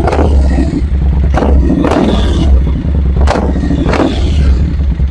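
2020 Triumph Street Twin's 900 cc parallel-twin engine idling with a steady low rumble through an aftermarket Hercules full-system exhaust, blipped about four times with short stabs of the throttle. The exhaust note is very strong.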